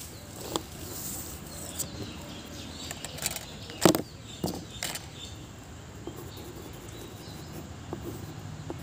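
A ruler and pencil handled on drawing paper: several short clicks and taps over steady background noise, the loudest about four seconds in.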